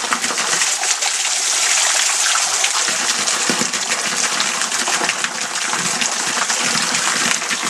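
Waterfall pouring: a steady, loud rush of falling fresh water.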